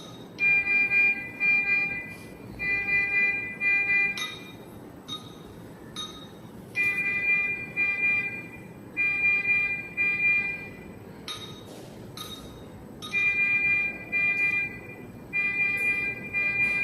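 ICU patient monitor alarm: a pitched, multi-note electronic alarm sounding in pairs of bursts that repeat about every six seconds. Short single beeps come between the bursts.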